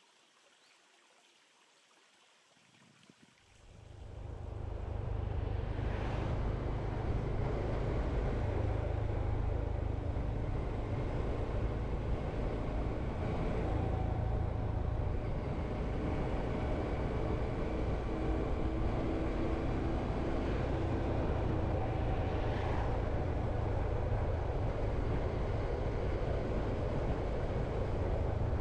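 Riding a Honda CT125 Hunter Cub: a steady low rumble of wind and engine noise that swells in about three and a half seconds in, after a faint, quiet start.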